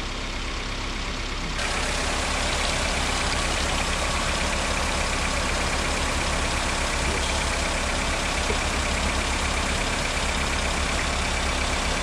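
Car engine idling steadily with the air-conditioning compressor running while the system is charged with refrigerant. The sound gets louder about a second and a half in.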